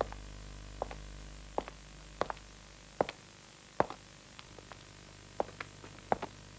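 A series of sharp clicks and knocks at uneven intervals, over a faint low hum that fades after about three seconds.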